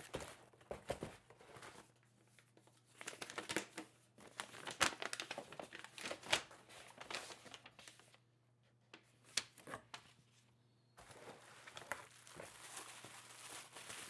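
Bubble-wrap and cardboard packaging crinkling and rustling as it is handled, in irregular crackly bursts. There is a quieter stretch with only a few clicks a little past halfway, then the rustling picks up again.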